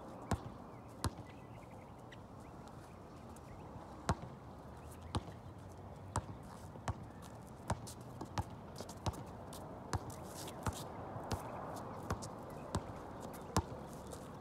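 A basketball bouncing on an outdoor hard court as it is dribbled. There are two bounces at the start, a pause of about three seconds, then a steady run of bounces, roughly one to two a second.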